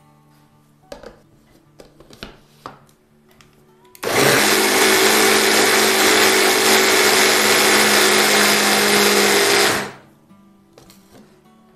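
Electric hand blender's chopper attachment running for about six seconds, blending tahini halva with milk and lemon into a smooth batter: a loud, steady motor whirr with a hum that starts abruptly about four seconds in and cuts off suddenly. A few light knocks come before it.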